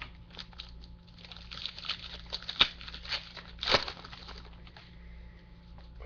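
Foil wrapper of a baseball card pack crinkling and crackling as it is opened and handled, a dense run of sharp crackles for about four and a half seconds that then dies down.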